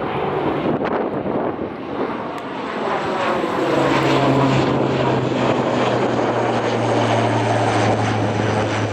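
Airliner engines running loud as a plane passes close by, growing louder about three seconds in, with a steady low hum under the rush.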